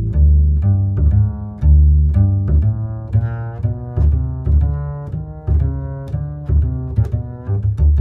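Instrumental background music with a prominent deep bass line and short notes repeating at a steady pace above it.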